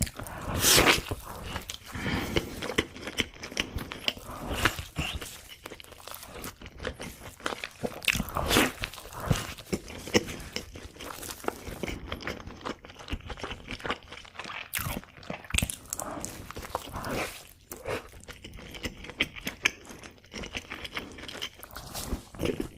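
Close-miked eating: crunchy bites and chewing of fast food, in many irregular short crunches.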